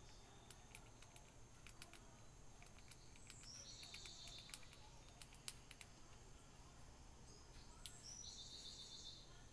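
Grey squirrel chewing seeds: faint, irregular crunchy clicks. A bird sings a short trill in the background twice, about a third of the way in and near the end.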